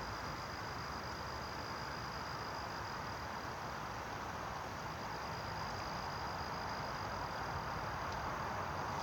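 Outdoor insect chorus: a steady high continuous insect trill over a constant even hiss.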